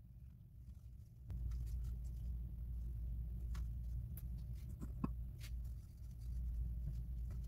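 Faint rustling and scattered light ticks of hands folding samosa pastry sheets on a wooden board, over a low steady hum that comes on about a second in.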